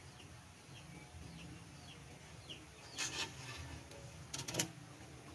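A brief scrape about three seconds in and a few light, sharp knocks about a second later, as bamboo poles are handled and worked on, over faint short bird chirps.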